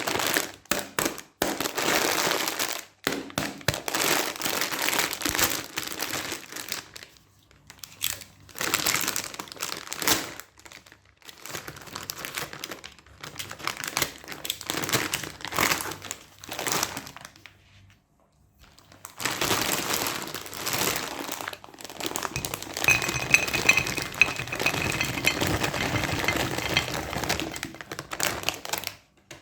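Plastic candy wrappers crinkling as they are handled and unwrapped, in repeated bursts with short pauses between them.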